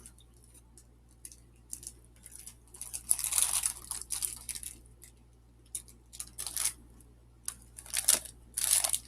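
Crinkling and rustling of plastic snack wrappers in several short bursts, the longest about three seconds in.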